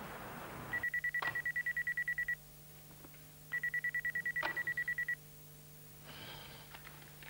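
Telephone ringing twice with an electronic warbling trill. Each ring lasts about a second and a half, and the rings are close to three seconds apart.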